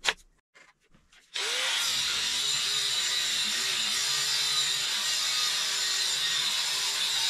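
A sharp knock, then about a second and a half in a corded angle grinder starts and runs steadily as its cut-off wheel cuts through square steel bar stock held in a vise.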